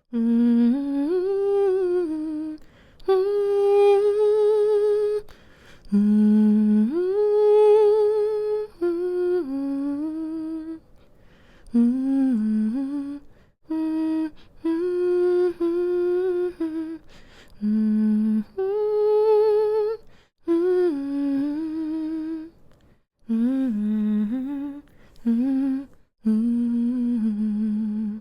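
A woman humming a slow lullaby melody to lull a baby to sleep, in short phrases of held and gliding notes with slight vibrato and brief pauses between them.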